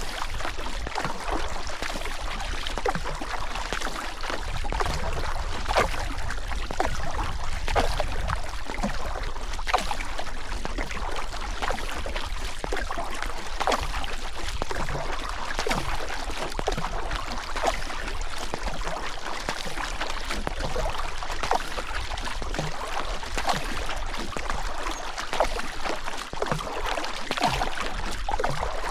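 Rushing river water: a steady wash of noise dotted with many small splashes throughout.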